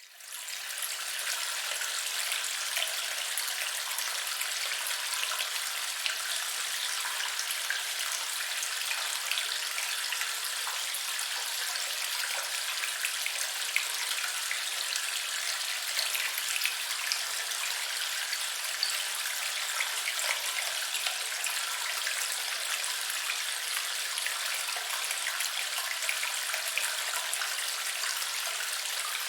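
Flowing water: a steady splashing hiss dotted with many small drip and splash sounds, fading in at the start and then holding even.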